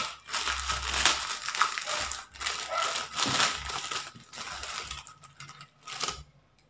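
Plastic bubble wrap crinkling and crackling as it is pulled off and unwrapped by hand, stopping about six seconds in.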